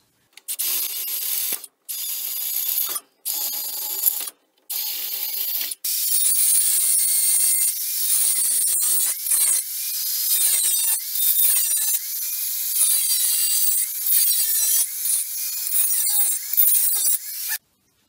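Small angle grinder with a cut-off disc cutting through a steel roller chain: a high-pitched whine and grinding hiss, with the motor's pitch dipping and recovering as the disc bites. In the first few seconds it comes in several short stretches with breaks between them, then runs unbroken until near the end.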